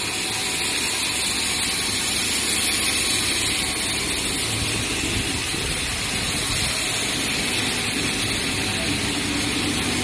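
Cat.6 LAN-cable insulation extrusion line running: a steady, even machinery noise with no distinct knocks or changes.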